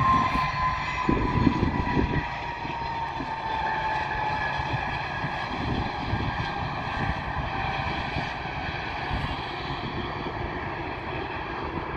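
Twin rear-mounted turbofan engines of a Bombardier CRJ regional jet rolling on the runway: a steady jet whine made of several tones, the main one slowly falling in pitch. Wind gusts on the microphone rumble underneath, strongest in the first couple of seconds.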